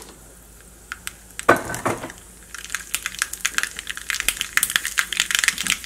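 Hot coconut oil in a small pan starting to sizzle, with sharp crackling pops that grow denser from about two seconds in as the mustard seeds begin to splutter. A brief knock about a second and a half in.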